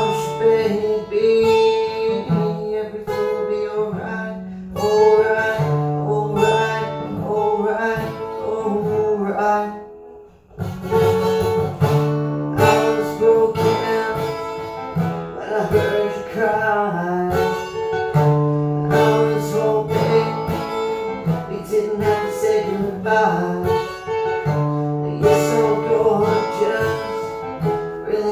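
Acoustic guitar with a capo, strummed through a chord progression. The playing drops away briefly about ten seconds in, then picks up again.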